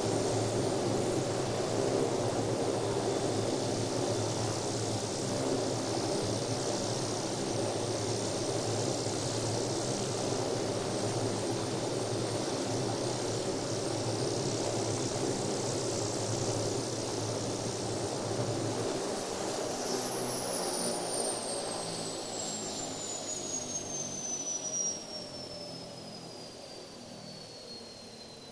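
Helicopter running with a steady rotor beat and engine hiss. About two-thirds of the way in the rotor beat weakens, and a high whine falls slowly in pitch as the whole sound fades.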